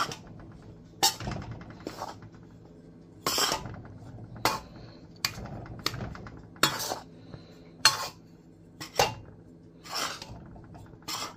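A metal spoon stirring dry flour in a bowl. The spoon clinks and scrapes against the bowl about once a second, a dozen or so strokes, over a steady low hum.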